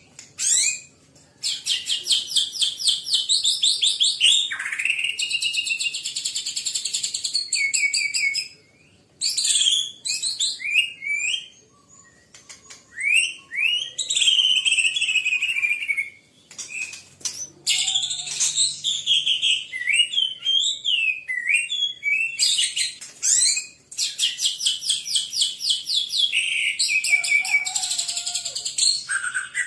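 White-rumped shama singing at length. Its loud song mixes fast runs of rapidly repeated notes with sweeping whistled phrases, broken by a few short pauses.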